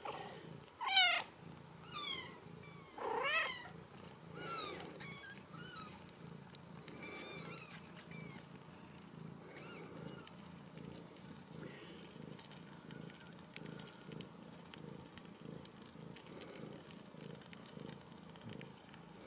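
Newborn Ragdoll kittens mewing in short, high cries, four in the first five seconds and fainter ones after, over the mother cat's steady purring.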